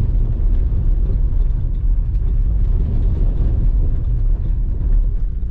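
Car driving on a muddy dirt track: a steady low rumble of engine and tyres.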